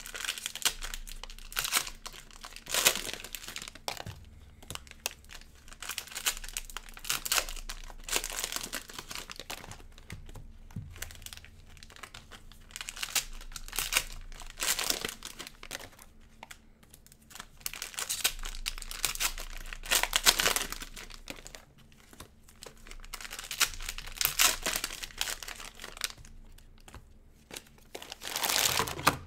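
Cellophane wrappers of Panini Prizm basketball cello packs being torn open and crumpled: irregular crinkling bursts every few seconds with short pauses between.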